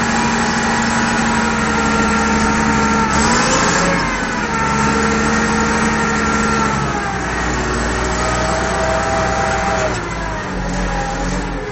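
Case IH 1056 XL tractor's six-cylinder diesel engine running under load while pulling harrows, heard from inside the cab. Its pitch dips and recovers a few times, and it drops a little in level near the end.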